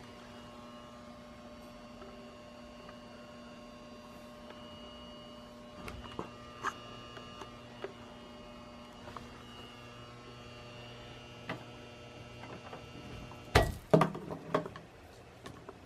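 The ballast of a Cooper Lighting 400-watt high-pressure sodium flood light humming steadily. Scattered light clicks, then a few loud knocks near the end.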